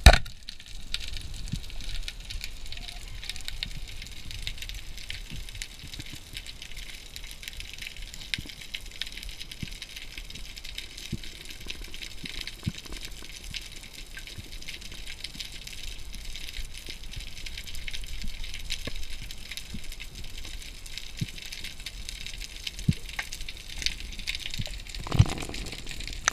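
Underwater sound from a spearfisher's camera: one sharp speargun shot right at the start, then a steady hiss with scattered crackling clicks. A dull thump comes near the end.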